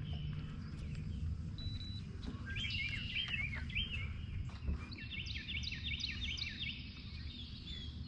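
A songbird singing two runs of quick, repeated chirping notes, the first a couple of seconds in and the second midway through, over a steady low rumble of outdoor noise.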